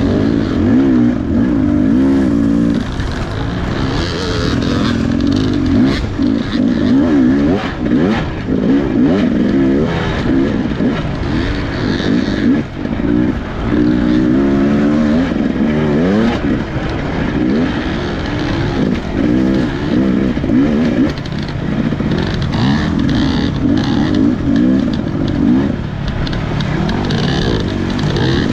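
Dirt bike engine under way on a rough trail, its revs rising and falling constantly as the throttle is worked, with scattered knocks and clatter from the bike over the rough ground.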